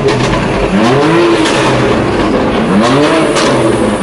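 2018 BMW M4 Competition's twin-turbo inline-six being blipped while the car stands still, through a titanium exhaust that is loud. Each rev rises and falls in pitch, about one every two seconds.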